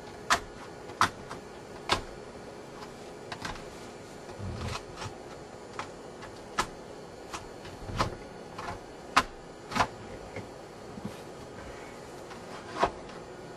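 Irregular sharp clicks and taps, roughly one a second, as a plastic hard card is pushed along the edge of window tint film to tuck it in against the rear glass.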